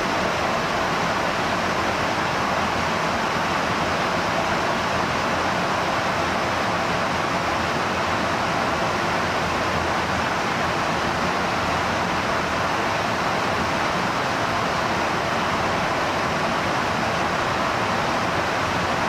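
Steady rushing noise of high-speed airflow during in-flight refuelling, even and unbroken, with no distinct tones or clicks.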